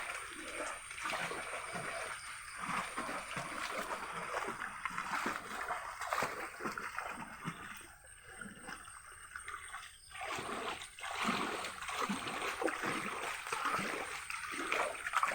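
Water splashing and sloshing in irregular strokes as hands paddle a makeshift raft across a tank, with a brief lull about halfway through.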